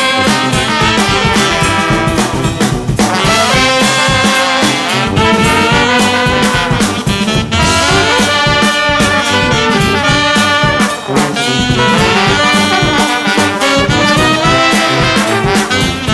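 Upbeat background music led by brass, in a swing-jazz style, with a steady beat.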